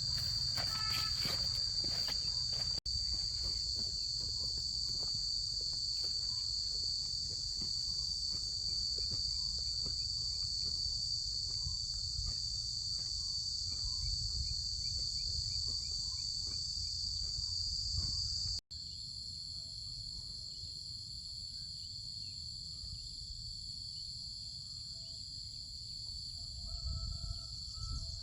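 Dense insect chorus shrilling steadily at a high pitch. It breaks off for an instant twice, at about 3 and 18 seconds in, and after the second break it goes on slightly quieter and with a changed tone.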